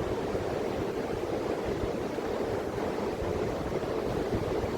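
Sea surf washing steadily on a sandy beach, with wind rumbling on the microphone.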